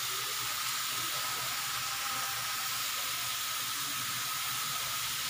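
Chicken sizzling steadily on a grill: an even, unbroken hiss with a faint steady tone running beneath it.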